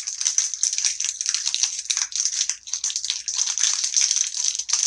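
Foil Yu-Gi-Oh! booster pack wrappers crinkling and crackling continuously as they are handled and opened.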